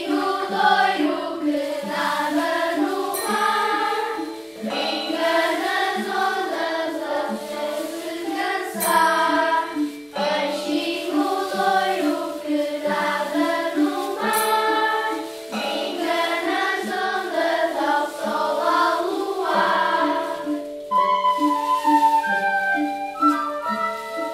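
Children's choir singing a song together over school mallet instruments (xylophones, metallophones and a bass xylophone) playing a repeated low pattern of about two notes a second, with a long held tone underneath. Near the end the singing stops and a higher instrumental melody carries on, with recorders among the players.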